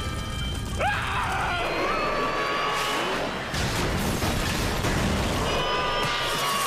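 Cartoon explosion sound effects: a continuous rumbling blast with crashing debris.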